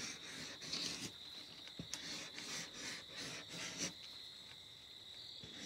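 Felt-tip marker scratching and squeaking across paper in short, irregular strokes as scalloped tree outlines are drawn, over a steady high-pitched background tone.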